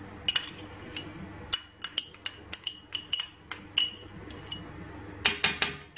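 Metal fork clinking and scraping against a small glass bowl as tomato paste and grated garlic are knocked out of it: a string of sharp, irregular clinks, coming thickest near the end.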